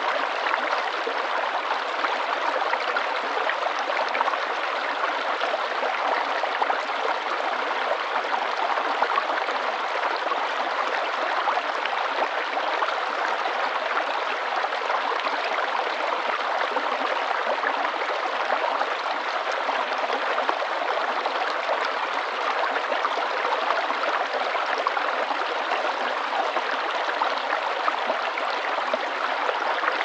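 Small rocky stream flowing and splashing over stones in little cascades, a steady rush of water that does not change.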